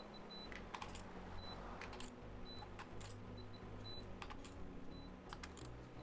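Digital torque wrench and ratchet working bolts on top of the engine: scattered sharp clicks and ticks of the tool, with faint short high beeps about once a second over a low steady hum.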